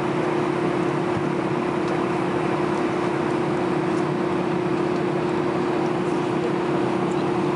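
Airbus A320's jet engines at low power, heard inside the passenger cabin: a steady hum with one constant tone over a broad rushing noise.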